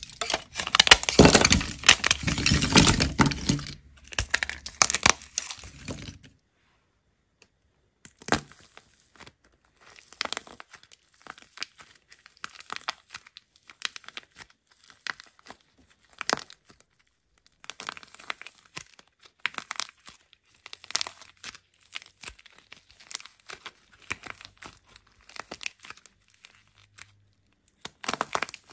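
Dried plaster clay crackling and crumbling in the hands: a few seconds of dense, loud crackling as brittle sheets are broken up, then, after a short silence, quieter scattered crackles and crinkles as cracked plaster-clay shells are peeled and squeezed off soft clay balls.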